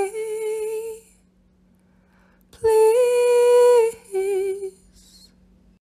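A woman humming a slow wordless tune: a held note that dips and fades out about a second in, then after a pause a long steady note and a shorter, lower one. A faint steady low hum runs underneath.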